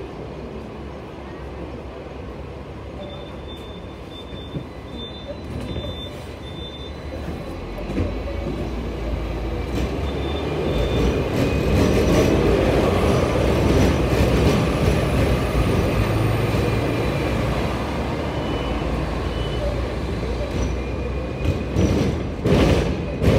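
Hong Kong double-decker electric tram heard from its upper deck. It idles quietly at first, then pulls away, and the steel wheels and running gear rumble and rattle louder as it gathers speed from about eight seconds in. A few sharp knocks come near the end as it rolls into a curve in the track.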